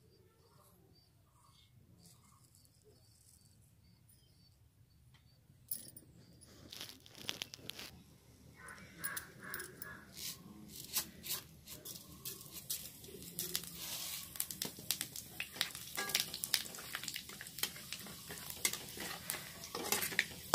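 Green chillies frying in hot oil in a pan: a dense crackling and spattering that starts suddenly about six seconds in and grows louder and thicker.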